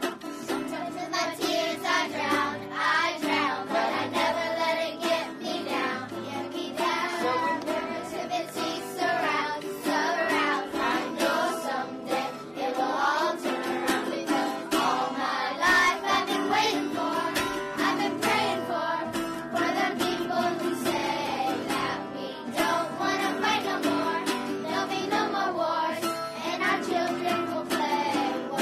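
A song sung over a plucked-string accompaniment, with children's voices among the singers.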